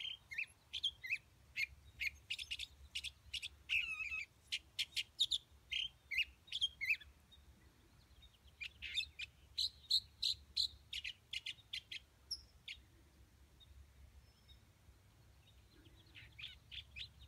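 A songbird singing: quick, varied runs of short high notes in two long phrases, then a shorter phrase near the end after a pause of a few seconds.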